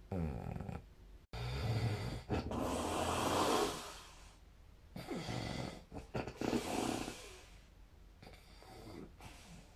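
A sleeping person snoring: about four snoring breaths, the longest and loudest a couple of seconds in, a shorter one later and a fainter one near the end.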